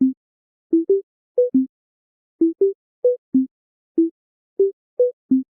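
A string of about a dozen short, plopping electronic boop tones at four or so different pitches, spaced unevenly like a simple bouncy tune, with dead silence between them: an added sound-effect or music track rather than the vacuums themselves.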